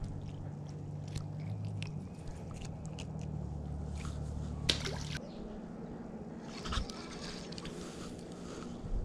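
Close handling noises of a small crappie being unhooked by hand: soft wet squishes and light clicks, with one sharper click near the middle and a brief rustle later. A low steady hum sits underneath and cuts off a little after five seconds in.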